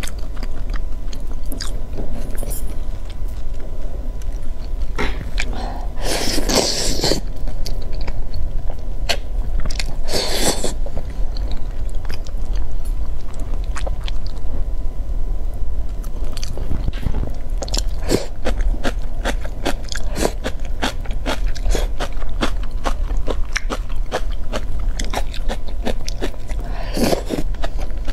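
A person chewing and biting soft, saucy meat close to the microphone: many short wet clicks and lip smacks, thicker in the second half. Louder noisy bursts come about five to seven seconds in, around ten seconds, and near the end.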